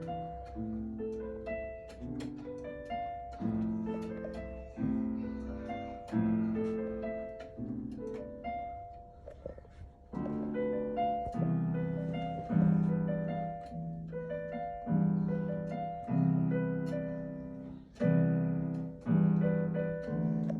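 Piano played slowly, a new chord or low note struck about every second and left ringing as it fades.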